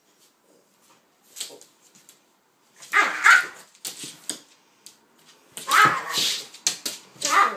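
Dogs barking while playing: short rough barks in bursts, the loudest about three and six seconds in.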